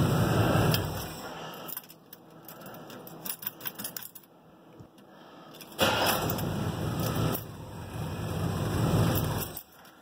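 Chevrolet Suburban engine running and then shut off about a second and a half in, keys jangling on the steering column, then firing up instantly on a tap of the key about six seconds in, running briefly and being switched off again near the end. The quick start is the sign that the vacuum leak, a hose to the transmission modulator left open, has been plugged.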